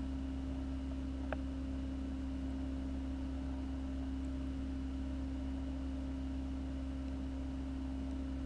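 Reef aquarium equipment humming steadily, a constant low tone over a faint hiss, with one short click about a second in.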